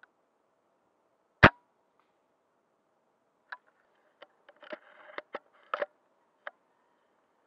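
A single sharp shot from a Snow Wolf M24 spring-powered bolt-action airsoft sniper rifle about a second and a half in. A couple of seconds later comes a run of lighter clicks and short rustles.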